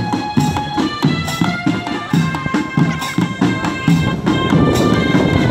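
School marching drum band playing: drums beat a steady march rhythm, about two to three strokes a second, under a melody of held notes.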